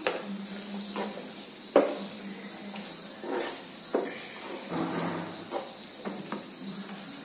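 Wooden spatula stirring and scraping pav bhaji in a non-stick frying pan, with irregular knocks against the pan, the two loudest about two seconds and four seconds in. A faint sizzle of the bhaji cooking in butter runs under it.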